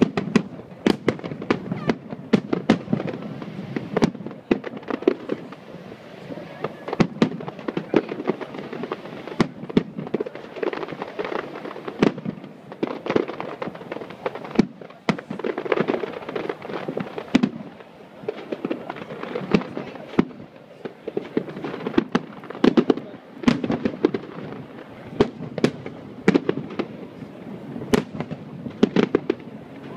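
Aerial fireworks shells bursting in a dense, continuous barrage: sharp bangs and crackles, several a second, overlapping one another.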